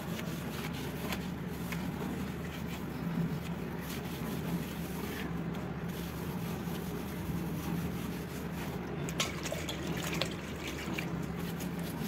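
A cloth wet with paint thinner being rubbed over a laminate kitchen shelf to lift stuck glue residue: soft, wet wiping and light scraping over a steady low hum.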